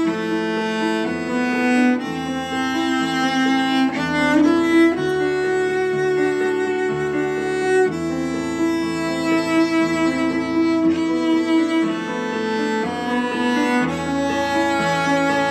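Background instrumental music in long held notes, with no speech over it.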